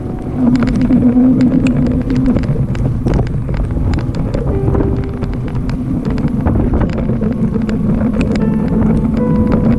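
Wind buffeting the microphone over the road rumble of a moving Himiway Cruiser electric bike, with many small clicks and a few steady humming tones that shift pitch now and then.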